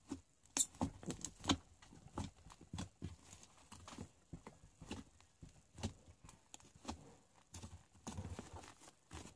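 Slime being squeezed and kneaded by hand, with faint irregular wet clicks and pops as two slimes are worked together.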